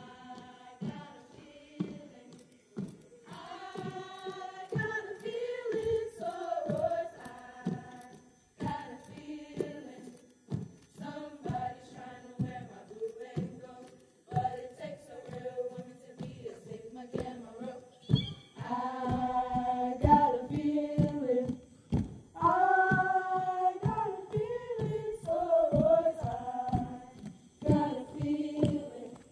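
A group of women singing together without instruments, a chant-like song in phrases of a few seconds with short pauses between lines.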